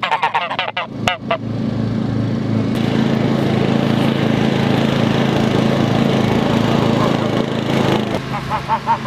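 A lawn mower's small engine runs steadily, cutting tall pasture grass. Geese honk over it about a second in and again near the end.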